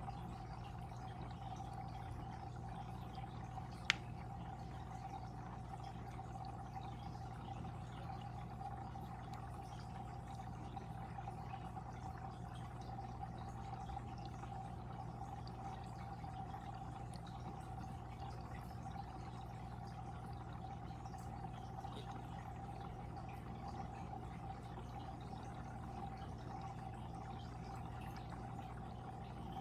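Water flowing steadily in a fish tank, over a low steady hum, with one sharp click about four seconds in.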